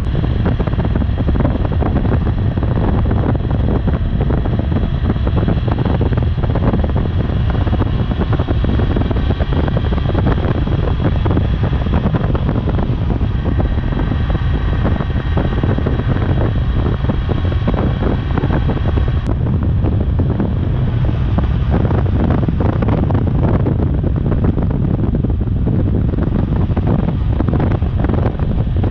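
Honda CB400 inline-four engine, fitted with a Yoshimura slip-on muffler, running steadily under heavy wind buffeting on the microphone. The sound changes abruptly about two-thirds of the way through.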